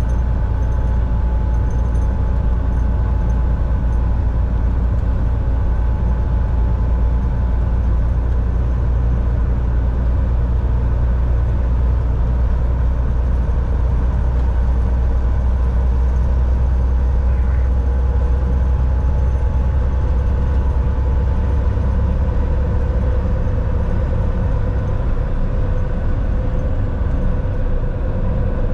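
Volvo VNL semi truck driving on the highway, heard from inside the cab: a steady low engine drone with road noise and a faint steady whine. The low drone eases slightly a few seconds before the end.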